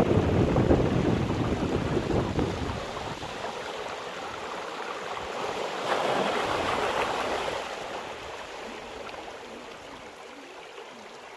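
Sea waves breaking and washing up the shore. A heavy surge with a deep rumble comes at the start, a second, lighter wash follows about six seconds in, and it then settles to a soft hiss.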